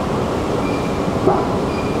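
Long subway-station escalator running with a steady mechanical noise. A short knock comes just past halfway, and there are two faint, brief high squeaks.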